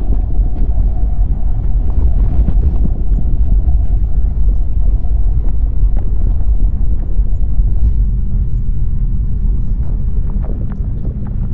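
A steady deep rumble with faint scattered ticks over it.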